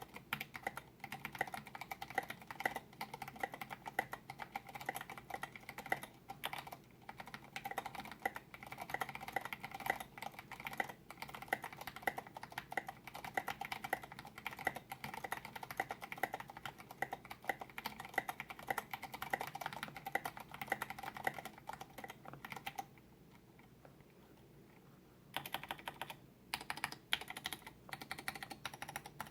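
Steady fast typing on an Input Club Kira mechanical keyboard with Cherry MX Vintage Brown switches and Maxkey keycaps. The typing stops for about two seconds a little after the 22-second mark, then resumes.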